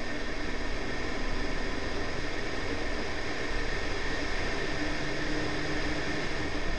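Honda Civic MB6 with the 1.8 VTi B18C4 engine driven at track speed, heard from a camera mounted on the outside of the car: a steady rush of wind and road noise with the engine note faint underneath.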